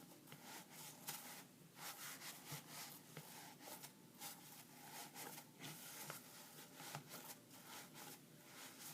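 Faint crackling and squishing of slime mixed with styrofoam beads as it is squeezed and worked by hand, in many small irregular crackles.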